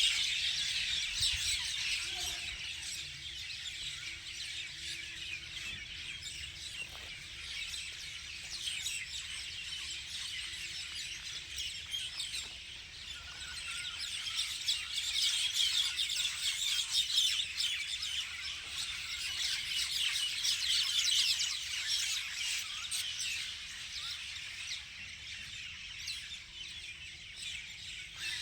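Many birds chirping and twittering at once in a dense, continuous chorus, growing louder for a while through the middle.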